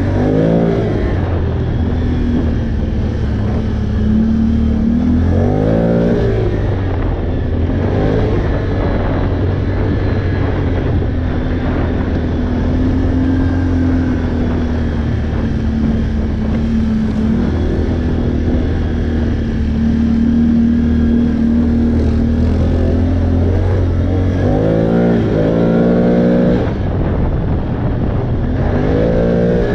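ATV engine running at a steady cruise, its note climbing sharply each time the throttle is opened: about five seconds in, and several times near the end.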